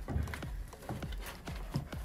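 Exhaust muffler being lifted out of its cardboard box and foam packing: a series of light knocks and thumps from handling the parts and the box.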